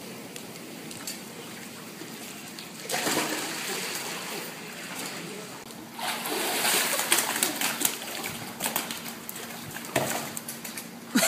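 Pool water splashing and sloshing, growing louder about six seconds in with wet slaps and splatters of a body on the wet pool deck.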